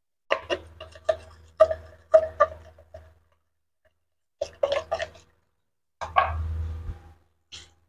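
Light clicks and knocks in four short bursts with a little ringing, like clattering, with a brief extra tick near the end.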